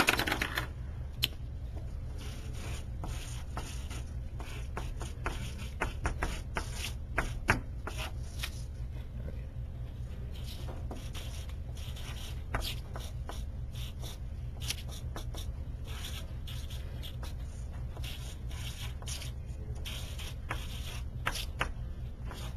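Sharpie marker drawn across a sheet of paper in many short, irregular strokes as letters are written, over a steady low hum. A sharper knock sounds at the very start.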